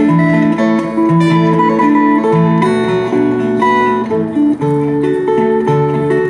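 Acoustic guitar playing an instrumental passage: quick picked notes over a moving bass line.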